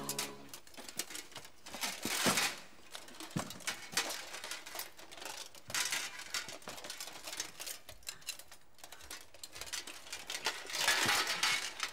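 Suit of plate armour clinking and clanking as the wearer moves, a run of scattered metallic clicks and rattles with a few denser bursts of jangling.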